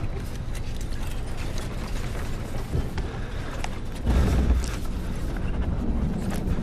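Airliner cabin rumble with scattered rattles and clicks, and a heavier bump about four seconds in.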